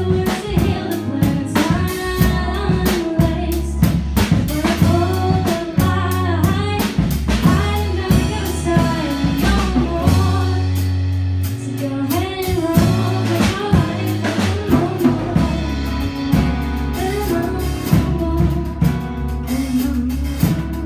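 Live band playing a song: a woman singing over acoustic guitar, a drum kit and electric bass.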